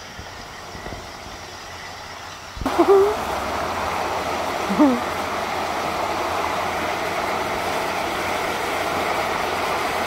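A curtain of water pouring from a rock wall into a pool, a steady splashing rush that starts abruptly about two and a half seconds in, after a quieter, muffled opening. Two short vocal cries stand out over the rush soon after it begins.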